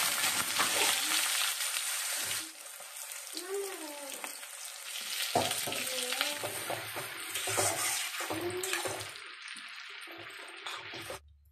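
Sliced onions sizzling in hot oil in a wok, loudest for the first couple of seconds as they are dropped in, then settling to a quieter frying, with a spatula stirring them. The sizzling cuts off suddenly near the end.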